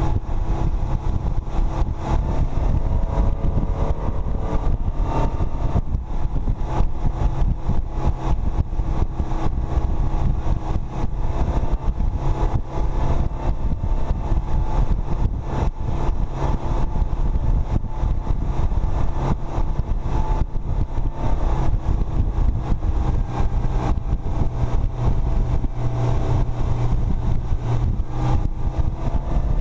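Mercury four-stroke outboard motor running steadily at speed while pulling a towed tube. The wake rushes behind it and wind buffets the microphone heavily.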